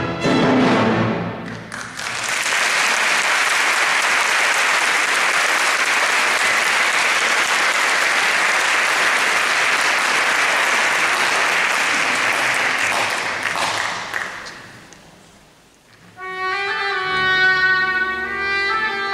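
An orchestra's final chord dies away, then the audience applauds steadily for about twelve seconds, the applause fading out. Near the end the orchestra starts playing again with held notes.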